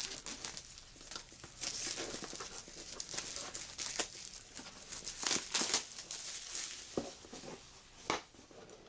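Packaging on a small card-game box crinkling and tearing as it is unwrapped and opened, with louder crackling about five seconds in and a couple of short sharp snaps near the end.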